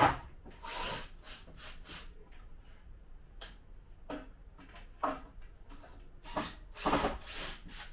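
Scattered knocks and clatter of objects being handled and moved about, with the loudest knock right at the start and a run of clattering near the end.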